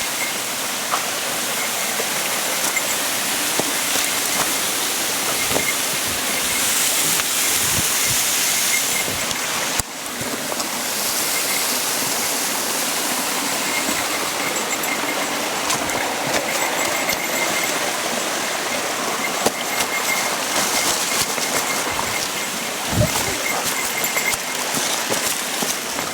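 Waterfall rushing steadily down rocks, a constant even roar of falling water.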